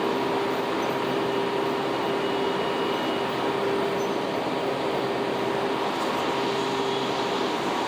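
Washington Metro railcar standing at the platform, its on-board equipment giving a steady hum with a constant whine over it.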